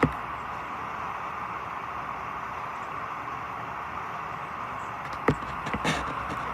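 Clothes dryer running on its test run after a part replacement, a steady whirring rotation sound that is now normal, with a click at the start and a few short knocks about five seconds in.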